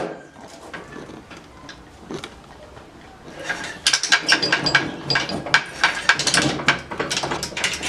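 Hand tools clicking and knocking against metal parts of a 110cc pit bike being taken apart: a quiet stretch, then a rapid run of irregular sharp clicks from about three and a half seconds in.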